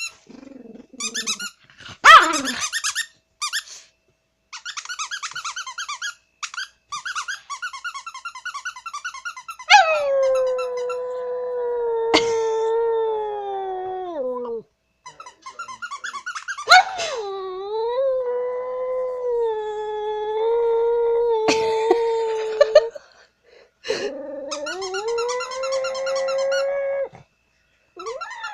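A squeaky toy squeezed over and over in quick squeaks, then a dog howling at it: three long, steady howls, with more squeaks over the last one.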